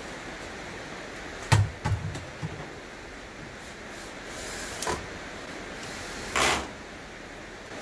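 Wooden boards being handled and set against the base of a chicken coop: one sharp knock about a second and a half in, a few lighter knocks just after, another knock near five seconds, and a short scrape about six and a half seconds in, over a steady hiss.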